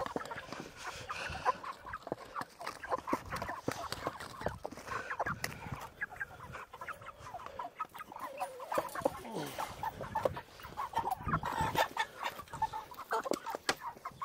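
Poultry clucking and squawking as they are caught and handled, with many short knocks and rustles throughout.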